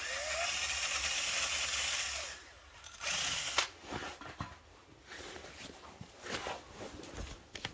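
Cordless drill spinning up and running for about two seconds, then a shorter burst about three seconds in, followed by scattered light clicks and knocks.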